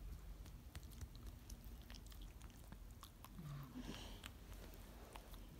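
Pekingese dog chewing and biting at a foot, faint small clicks and scuffs of its mouth working at the fabric.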